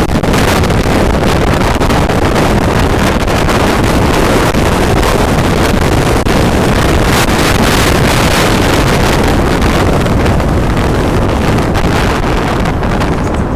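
Loud, steady rushing noise of wind blasting across the microphone.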